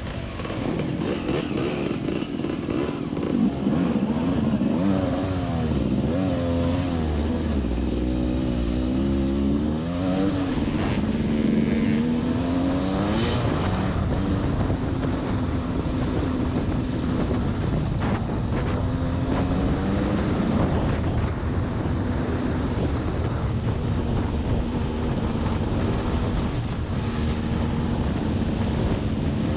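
Off-road vehicle engine revving up and down through gear changes for the first dozen seconds or so, then running at a steady speed.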